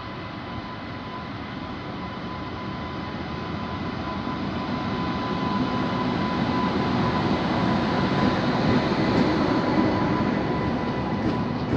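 Indian Railways WAP-7 electric locomotive and its LHB passenger coaches passing close by, the rumble of wheels on the rails growing steadily louder as the train draws level. A thin steady whine runs through it.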